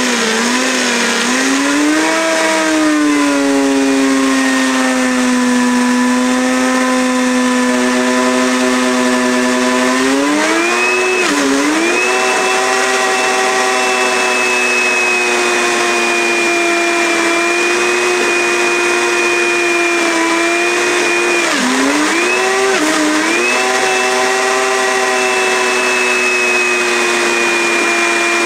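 Blendtec countertop blender running its preset whole-juice cycle, pureeing a thick avocado mixture: a loud, steady motor whine that steps up to a higher speed about ten seconds in, dips briefly a few times a little past twenty seconds, and starts winding down at the very end.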